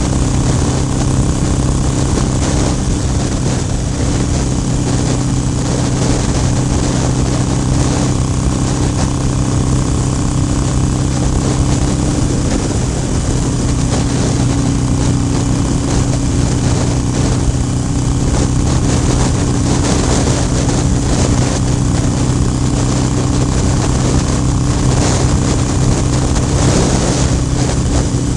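Harley-Davidson Iron 883's air-cooled V-twin running at a steady pitch while the bike is ridden, with a steady rush of wind noise over it.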